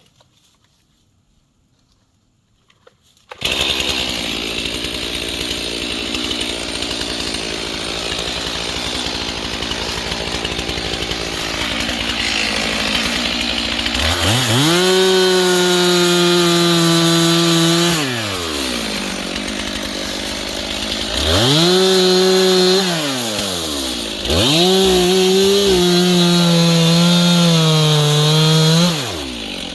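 Chainsaw starting up about three seconds in and idling steadily, then revved up to full throttle in three or four long bursts that each drop back to idle.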